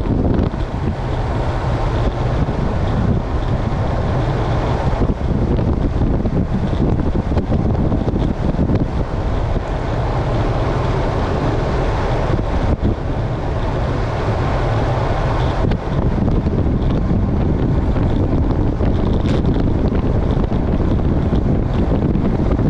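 Heavy wind rushing over the microphone of a bike-mounted camera on a road bicycle descending at about 40 mph. It is a steady, loud roar with occasional gusts.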